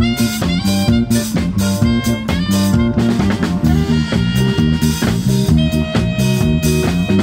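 Band music: a Jazz-style electric bass playing a bouncing line of stepping notes over a drum kit keeping a steady beat, with guitar.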